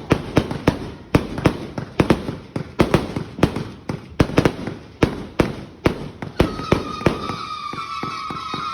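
A 260-shot Eclipse firework cake firing rapid shots, about three sharp bangs a second. Some six and a half seconds in the bangs stop and a steady high whistling tone takes over, with faint crackles beneath it.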